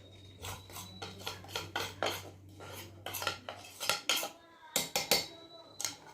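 Metal utensils clinking and scraping in a metal mortar (imam dasta) as the remedy's ingredients are put in. The clinks come in an irregular run with no steady pounding rhythm and are loudest about four to five seconds in.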